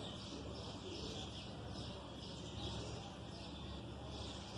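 Small birds chirping repeatedly in short high calls, over a steady low hum.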